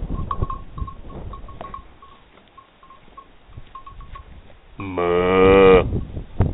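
One loud, low moo lasting about a second, near the end.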